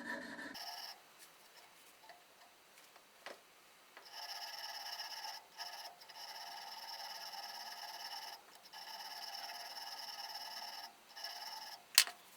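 Steel auger bit being honed on its chisel edge with a 600-grit stone. The strokes last about two seconds each and give a thin, steady ringing tone, with short breaks between them and a sharp click near the end.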